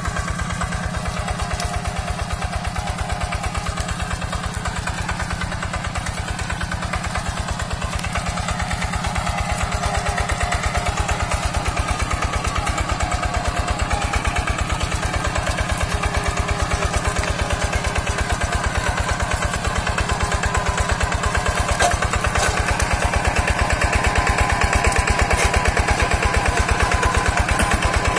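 Yanmar two-wheel hand tractor's single-cylinder diesel engine running steadily under load while ploughing dry ground, with a fast, even chugging. It grows louder about ten seconds in and again near the end.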